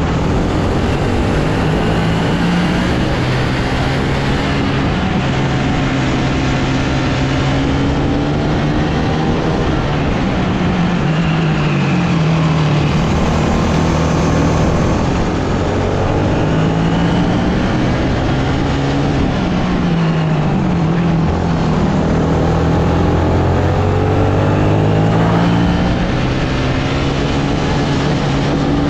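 Sodikart RX250 rental kart engine heard onboard at racing speed, its pitch dropping when the driver lifts for corners and climbing again on the straights several times. A steady rush of wind and road noise runs underneath.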